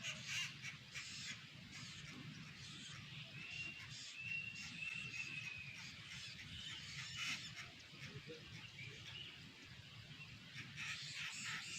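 Bird calls: dense harsh chattering notes, with a few short clear whistles from about three to five seconds in.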